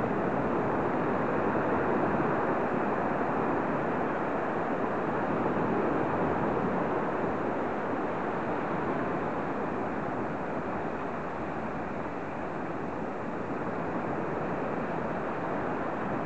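Surf from sea waves washing up over flat sand at the water's edge: a steady rushing noise that is a little louder in the first half and eases slightly about two-thirds through.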